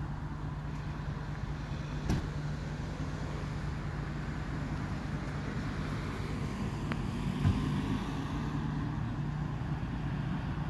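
A vehicle engine running with a steady low hum, with two short knocks, about two and seven and a half seconds in.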